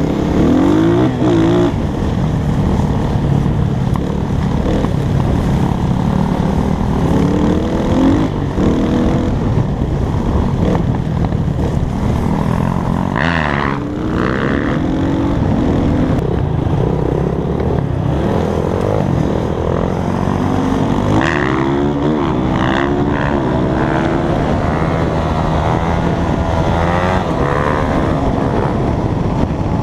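Dirt bike engine running under way, its revs rising and falling over and over as the rider works the throttle and shifts.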